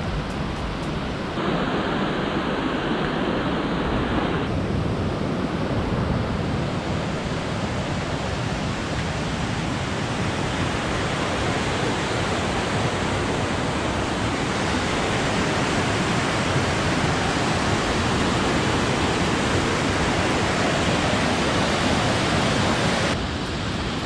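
Mountain stream below the Stuibenfall rushing over boulders: a steady, dense roar of white water with no pauses, its level stepping up slightly about a second and a half in and dipping near the end.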